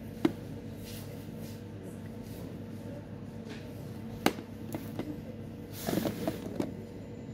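Plastic food containers being handled on a shop shelf: a sharp plastic click near the start, another about four seconds in, then a brief clatter and rustle of plastic tubs and lids about six seconds in. A steady low hum of shop background runs underneath.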